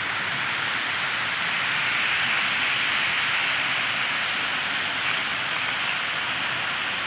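Water cascading down a stepped fountain wall with a row of bubbler jets, a steady rushing splash that grows a little louder about two seconds in.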